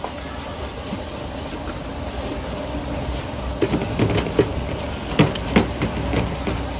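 Long metal spatulas scraping and clanking against a large stainless steel wok as fried rice is stir-fried, over a steady low rumble of the gas wok burner. The clanks start about halfway through and come in a quick irregular run of sharp strikes.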